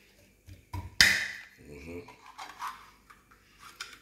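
Kitchen knife knocking into the top of a tin can of milk to pierce it: two sharp metallic knocks about a second in, the second the loudest and ringing briefly, then a few softer taps.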